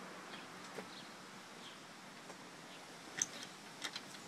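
Faint outdoor background with small birds chirping now and then, and a few sharp clicks about three and four seconds in.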